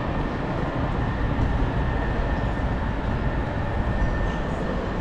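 Steady low rumble of city street noise with road traffic.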